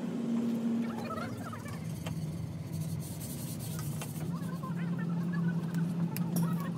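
An engine running steadily, its hum dropping to a lower pitch about two seconds in, with a few sharp clanks near the end.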